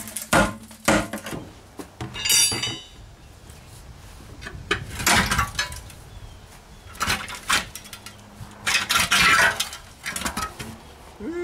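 A pry tool knocking and prying at a steel tractor wheel rim eaten through by calcium chloride rust, giving sharp metal clanks and one ringing clang about two seconds in. Several scraping, crunching bursts follow as the corroded rim section is worked loose from inside the tire.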